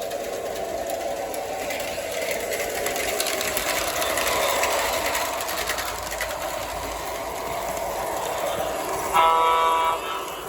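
O gauge model train running along the track, a steady running sound that swells and fades slightly as it moves around the layout. Near the end, one short horn blast lasting under a second, the loudest sound.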